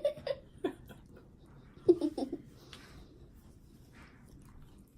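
Brief bursts of giggling laughter, one right at the start and another about two seconds in, with quiet room tone between.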